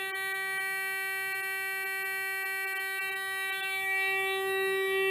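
Electronic buzzer on a homemade biocalorimeter sounding one steady, unbroken tone as its red lamp lights, signalling that the sensor has reached its set-point temperature. The tone gets a little louder about four seconds in.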